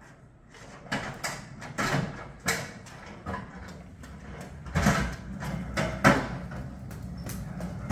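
Hand pallet jack rolling a heavy crate over a concrete driveway: a run of irregular knocks and clatters, loudest about five and six seconds in.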